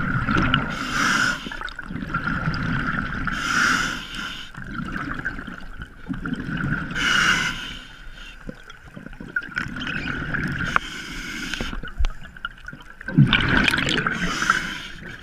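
Scuba diver breathing through a regulator underwater: a hiss on each inhale alternating with the low bubbling of exhaled air, in a cycle every few seconds.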